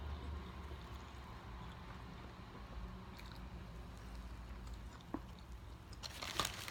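A person quietly chewing McDonald's food close to the microphone, with a single faint click about five seconds in and a short burst of crackling clicks near the end.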